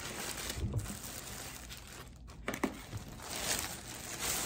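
Clear plastic bag crinkling and rustling as it is pulled off a mini fridge, with a couple of short knocks about halfway through.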